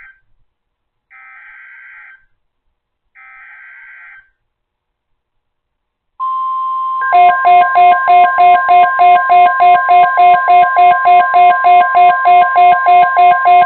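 Emergency Alert System SAME header: three short bursts of screechy digital data squawk, the header sent three times. Then the steady alert tone of NOAA Weather Radio comes in, joined about seven seconds in by a loud, rapid beeping of several tones at about three to four beeps a second.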